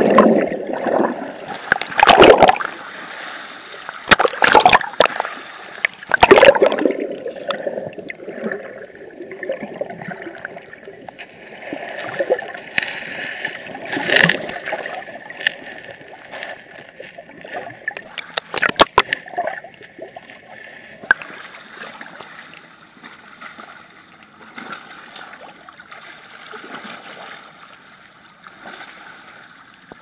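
Water sloshing and gurgling against a moving action camera underwater, heard muffled. Loud splashes and knocks come in the first several seconds and twice more midway, then the water noise settles quieter.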